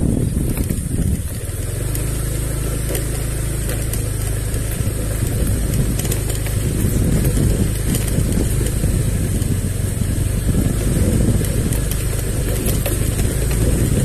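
A motorcycle engine running at a steady low hum that sets in about a second and a half in, with a steady high hiss throughout.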